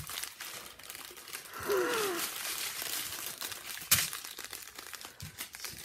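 Thin plastic zip-lock bags of diamond painting drills crinkling as they are handled, with one sharp click about four seconds in and a short falling vocal hum about two seconds in.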